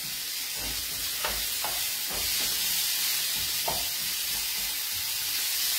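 Escarole sizzling in an oiled frying pan while it is stirred, with a steady hiss and a few light knocks against the pan.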